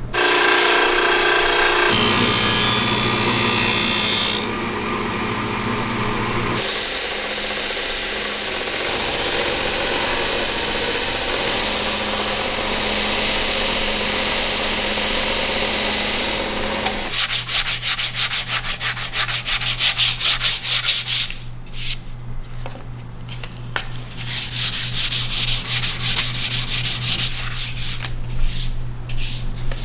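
Electric belt sander running with a wooden sword handle pressed against the belt, a steady grinding rasp over the motor's hum. Just over halfway through it gives way to quick back-and-forth strokes of wood being rubbed on sandpaper by hand.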